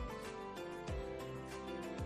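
Background music: held melodic notes over a deep bass thump that falls in pitch, about once a second.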